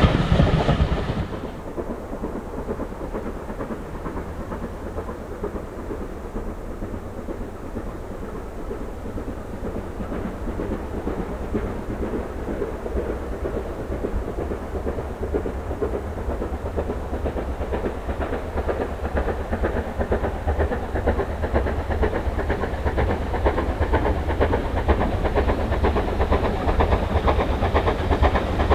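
Steam locomotive hauling a passenger train, heard approaching from a distance as a low rumble that grows steadily louder. In the first second and a half, a louder train sound from the previous shot cuts off abruptly.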